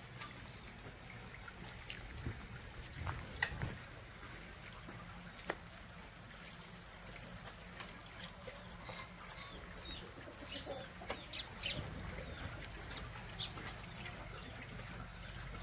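Faint trickling and dripping of rainwater, with scattered soft knocks and short high ticks. There are a few louder knocks a couple of seconds in and a cluster of ticks about ten seconds in.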